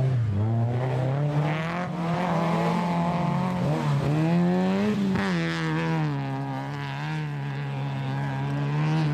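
Daihatsu Charade 4WD rally car's engine revving hard through a snowy corner and away. Its pitch rises and falls, with two quick dips about four and five seconds in, then holds at high revs.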